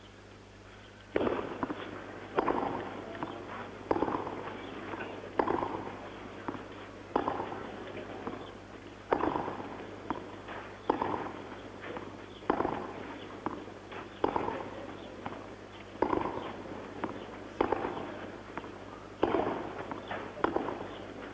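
Tennis racket strings striking the ball in a long baseline rally on a clay court: sharp pops about every one and a half seconds, starting about a second in, each followed by a softer thud of the ball bouncing on the clay.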